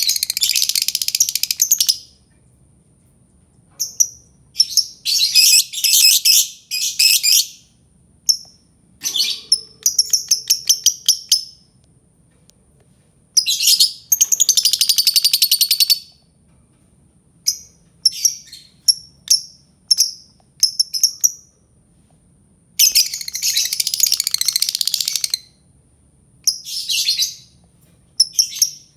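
Albino lovebird chattering in shrill bursts: several runs of about two seconds of rapid high chirping, one quick run of clicking notes, and short single chirps in between.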